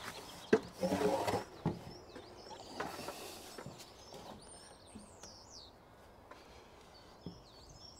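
A timber rafter being handled against the roof frame: a sharp wooden knock about half a second in and a short clatter, then a few softer knocks. After that, small birds chirp a few times.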